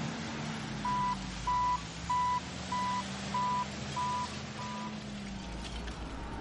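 Container-terminal machinery: a steady low machine drone with a warning beeper sounding seven evenly spaced beeps, about one and a half a second, which stop about five seconds in.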